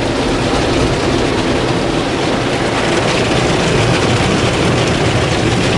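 Ryko Softgloss XS automatic car wash heard from inside the car: water spraying onto the body and glass with the wash machinery running, a loud, steady noise.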